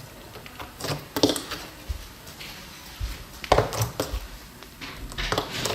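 Clear slime being squished and pulled by hand, giving off irregular sticky pops and clicks in clusters.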